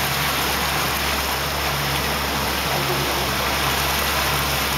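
Steady rushing water noise as a boat moves along the channel, with a low hum underneath that comes and goes.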